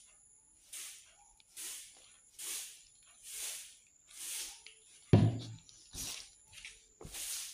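Hand mixing flour in a stainless steel bowl: a dry, rhythmic swishing about once a second. A single loud knock comes about five seconds in, followed by a couple of lighter knocks.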